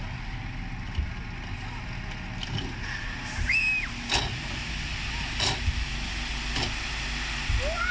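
Tipper truck's engine running with a steady low rumble while its raised bed dumps a load of gravel; from about three seconds in comes the rushing hiss of stones sliding out of the tailgate, with a few sharp clacks.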